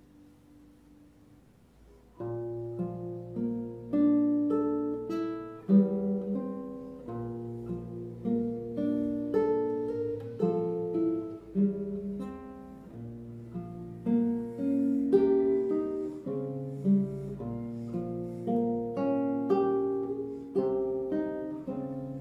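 Classical nylon-string guitar played fingerstyle: a faint fading note, then from about two seconds in a flowing passage of plucked melody notes over held bass notes.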